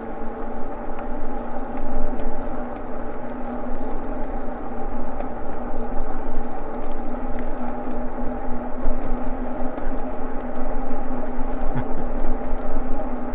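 Eahora Juliet e-bike rolling at a steady speed: a steady hum from its motor and tyres that holds one pitch throughout, over a low rumble.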